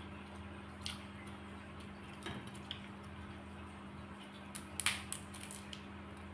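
Cooked crab shell being cracked and picked apart by hand: scattered small cracks and crunches, the loudest cluster about five seconds in, over a steady low hum.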